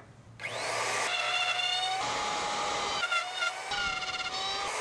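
Electric wood router mounted under a router table spinning up about half a second in, then running at full speed with a high, steady whine whose pitch shifts slightly a few times.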